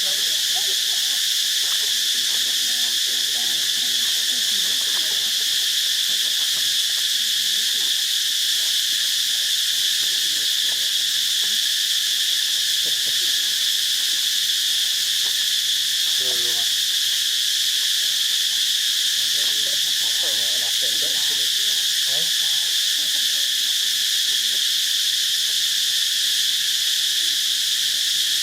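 Steady chorus of insects: a dense, high-pitched buzz that holds unchanged throughout.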